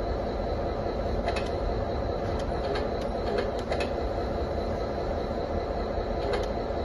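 Simulated diesel engine sound from the sound module of a 1/14 JZModel CAT 745D RC articulated dump truck, idling steadily through the model's small speaker. A few light clicks come between about one and four seconds in, and once more near the end.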